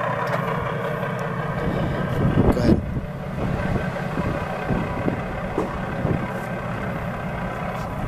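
Remote-control model Versatile Big Roy tractor running as it drives slowly on pavement: a steady motor drone with a few louder bumps about two and a half seconds in.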